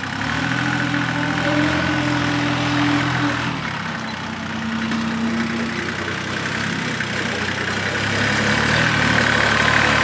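Engine of a compact tractor with an upright exhaust, running steadily as the tractor drives along towing a topper.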